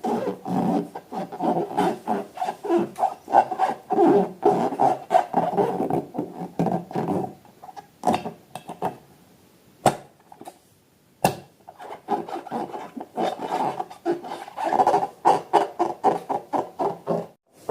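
Rubber balloons being rubbed and squeezed, giving rapid runs of rubbery squeaks and scrapes. The runs stop for a few seconds in the middle, where there are two sharp clicks, then start again.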